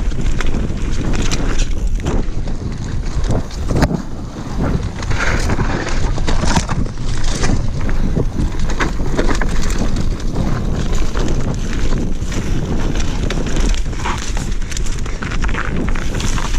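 Mountain bike ridden fast down a dirt forest trail: wind buffeting the microphone over the tyres on dirt, with frequent rattles and knocks from the bike as it runs over roots and bumps.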